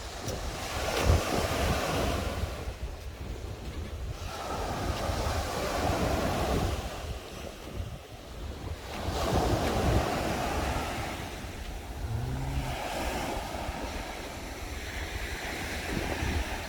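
Sea waves breaking on the shore, the surf swelling and falling back every few seconds, with wind rumbling on the microphone.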